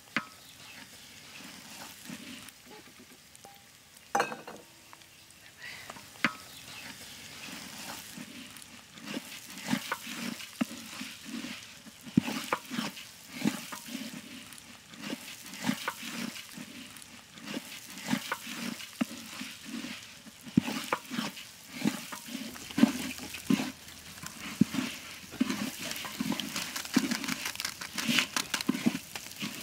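Rice being stirred and turned with a wooden spatula in a metal pot: rustling, scraping strokes against the pot, quieter and sparser at first. From about nine seconds in they settle into a steady rhythm of roughly two strokes a second.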